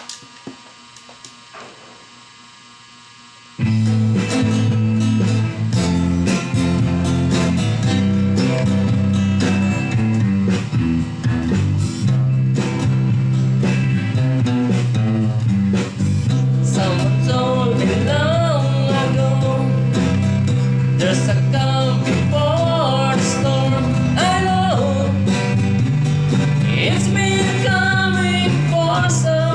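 A low steady hum with a few clicks, then about three and a half seconds in a rock song starts: strummed guitar over steady bass notes, with a voice singing from about halfway through.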